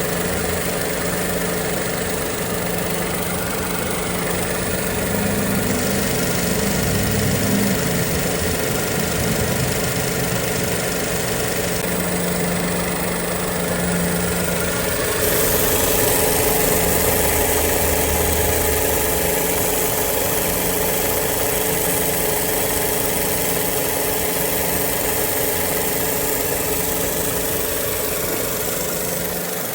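Suzuki Wagon R engine idling with a steady mechanical hum from the air-conditioning compressor. This abnormal noise goes with the A/C failing to cool, a compressor fault on some Suzuki cars.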